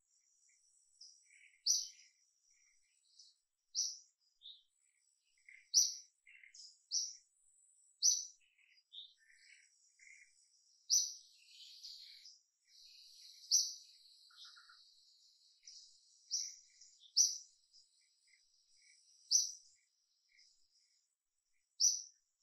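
Wild birds calling: one bird repeats a short, sharp, high chirp every second or two, with fainter chirps from other birds between, over a thin steady high whine.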